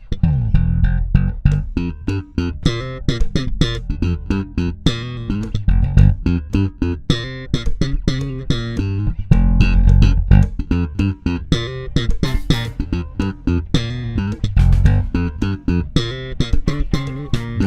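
Fodera Monarch electric bass played slap style: a busy funk line of thumb slaps and popped strings, with sharp, rapid attacks over deep bass notes.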